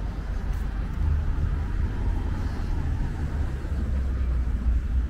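Street traffic: a motor vehicle's low engine rumble close by, growing stronger about a second in and holding steady.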